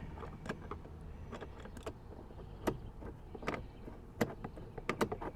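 A Torx screwdriver being worked into a screw recess in a Mercedes W203 plastic door panel: a few scattered, sharp clicks and taps of metal on plastic, more of them near the end, over a faint low hum.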